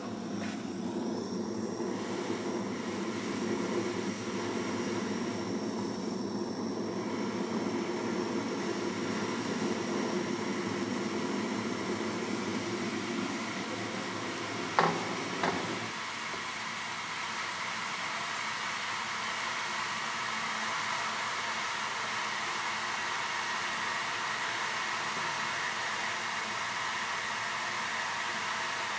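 Gas blowtorch flame roaring steadily while it heats a pile of ammonium dichromate. About halfway through there are two sharp clicks, the roar stops, and a steady, higher hiss goes on.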